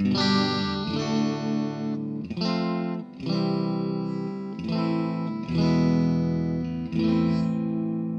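Squier Stratocaster electric guitar strumming chords through a Vox AD-100VT XL amplifier, about seven chords struck roughly a second apart and each left ringing.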